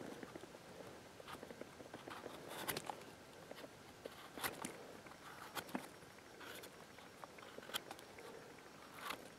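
Faint rustling and crackling of dry pine needles and twigs on the forest floor, with a handful of sharp crackles at irregular intervals.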